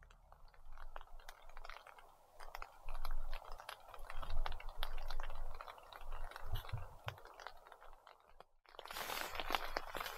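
Rain pattering on a tarp shelter overhead, a dense, irregular crackle of drops. After a brief gap near the end it is denser and louder.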